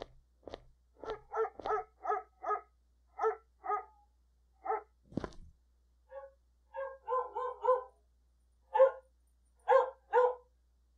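A dog barking repeatedly in short volleys of two to four barks, with a single knock a little over five seconds in. A few sharp clicks come at the very start.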